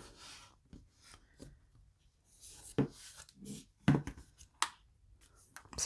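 Handling of a small charging cable and its plugs: soft rustling with several sharp clicks and knocks of connectors being fitted.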